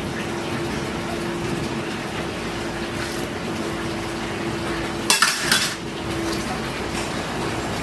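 Kitchen dishes and utensils clattering, two sharp knocks about five seconds in, over a steady rushing background with a low hum.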